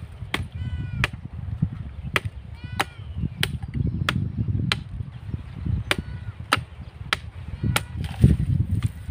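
Hooked machete (billhook) chopping into thin green tree branches: about a dozen sharp blows, unevenly spaced roughly two-thirds of a second apart.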